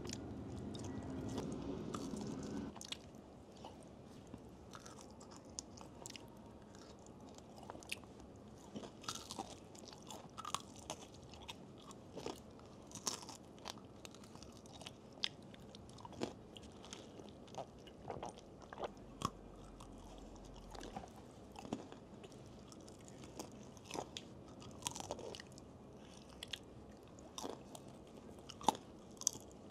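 Close-miked chewing and biting of crispy fried boneless chicken feet: irregular sharp crunches and mouth clicks, several every few seconds.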